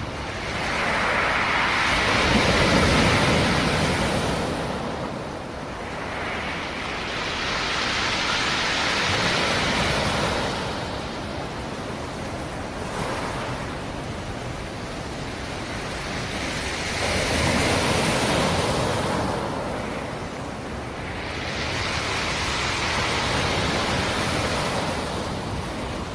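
Sea surf: waves rolling in and washing onto the shore, swelling and falling back four times, with a steady hiss between them.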